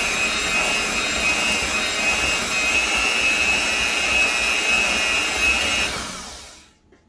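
Electric hand mixer running on low speed, its beaters whirring through thick cake batter with a steady high whine. About six seconds in it is switched off and winds down to a stop.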